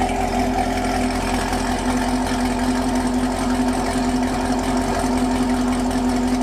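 Chevrolet Camaro SS 1LE's 6.2-litre V8 idling steadily, heard at the exhaust tips, with an even, unchanging note. The car has a P12FF cylinder-deactivation (V4 mode) fault code set, which the owner links to the exhaust tone trying to change and then kicking back.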